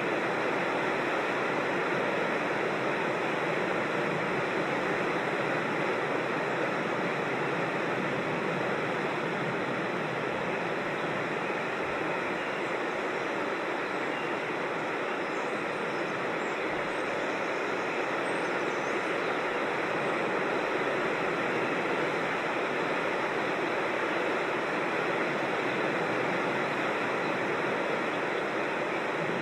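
Steady rush of flowing creek water, an even unbroken wash of noise.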